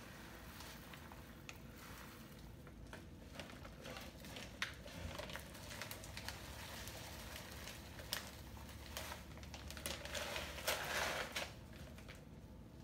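Small aquarium gravel pouring from a plastic bag into a terracotta pot, the pebbles clicking and pattering onto the soil with light crinkling of the bag. The clicks come scattered, thickening into a busier stretch of rattling about ten seconds in.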